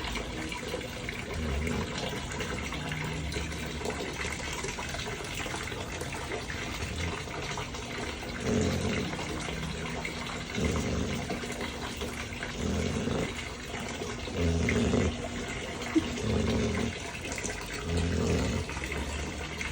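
Sleeping dog snoring, with low snores repeating about every two seconds that grow louder about halfway through, over a steady hiss.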